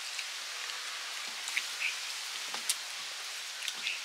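Quiet eating sounds: fingers working rice on steel plates and chewing, heard as scattered small clicks and smacks over a steady hiss.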